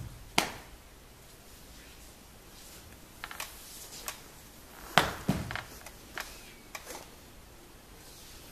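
Dancers' feet and hands on a hard floor: a string of sharp thumps, slaps and scuffs, the loudest about five seconds in.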